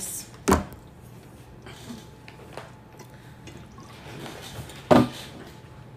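Two sharp knocks about four and a half seconds apart, with a few faint clicks between them over a low steady hum.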